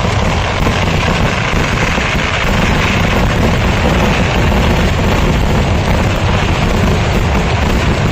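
Kerala temple fireworks going off in a dense, unbroken barrage: rapid explosions running together into a steady rumble.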